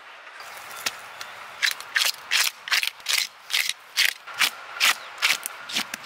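Large scales being scraped off a parrotfish on a stone: a run of short, sharp, rasping strokes, about two to three a second, starting a second and a half in.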